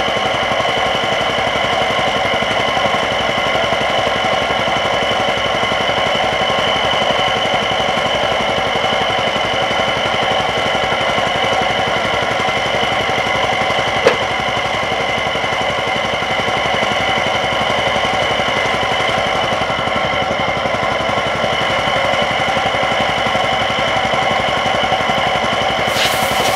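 An engine running steadily, with a rapid, even pulse and a steady whine above it. A single sharp click comes about halfway through.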